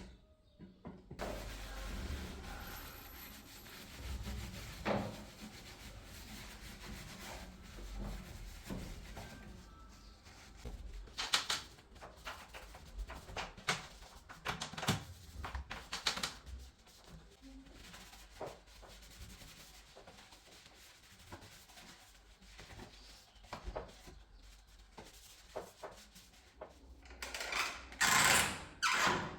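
Irregular rubbing and scraping with many scattered clicks and knocks, from a door handle and latch mechanism being handled and worked; the clicks grow louder near the end.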